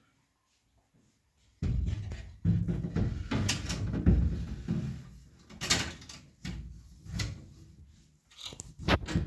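Shelves and bins being handled and pulled out of an open refrigerator. After a second and a half of quiet comes a few seconds of dense rattling and rubbing, then several separate clicks and knocks.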